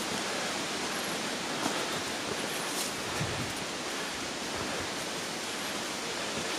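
Steady outdoor ambience: an even rushing hiss with a few faint ticks.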